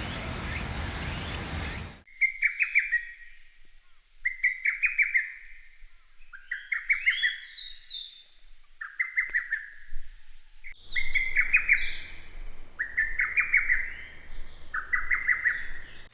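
Lesser cuckoo singing: seven short, loud phrases of quick stuttering whistled notes, about one every two seconds. A steady hiss of background noise fills the first two seconds, before the first phrase.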